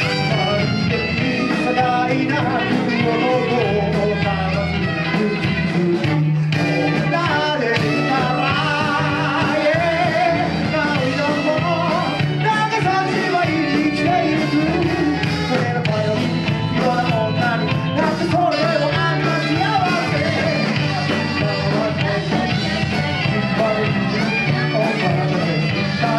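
A live band playing, with a wavering lead melody line over a sustained bass part.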